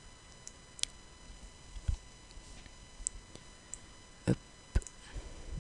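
Computer mouse clicking a handful of times at irregular moments, with a couple of soft knocks, the strongest about four seconds in.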